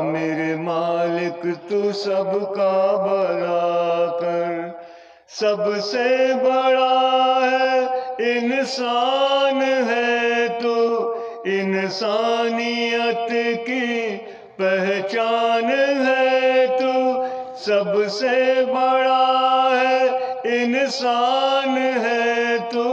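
A man singing into a handheld karaoke microphone in long, drawn-out held notes, with a short break about five seconds in and another brief pause past the middle.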